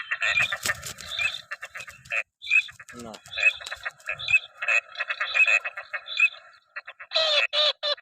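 Ducks calling: rapid chattering with quacks running almost without a break, and a few louder, separate quacks near the end.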